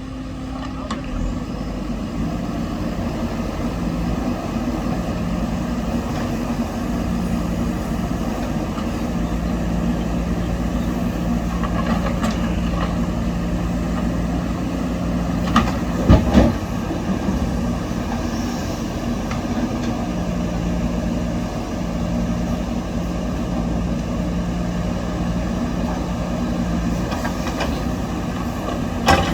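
Backhoe loader's diesel engine running steadily, its pitch stepping up and down a few times. A cluster of loud knocks comes about midway and another near the end.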